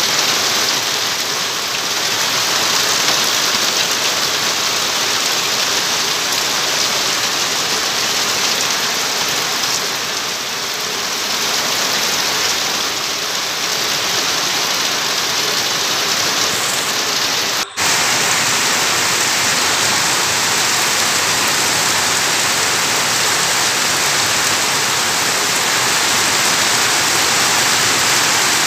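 Heavy rain falling steadily, pouring off a corrugated sheet roof edge and splashing onto a flooded concrete yard, with a momentary break about two-thirds of the way through.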